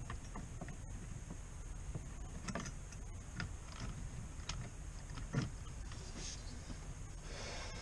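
Scattered light clicks and taps, roughly one a second, of hands fitting a steel switch plate and its screws into a car's dashboard, over a low steady hum.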